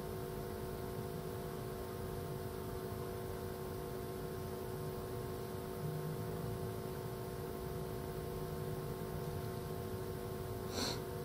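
Steady electrical hum and hiss of room tone, with a faint click near the end.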